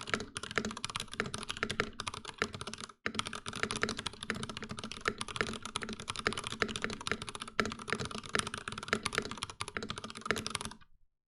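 Fast, continuous typing on a compact mechanical keyboard with stock Cherry MX Black linear switches in a plastic case, many keystrokes a second. There is a brief pause about three seconds in, and the typing stops shortly before the end.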